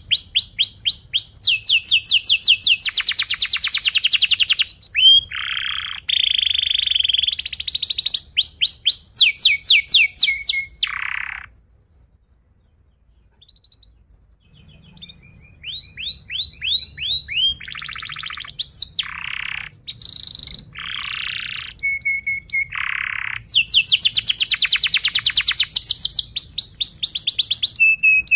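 Domestic canary singing long phrases of rapid, tightly packed trills (rolls) and chirps. The song breaks off for about three seconds midway, then resumes.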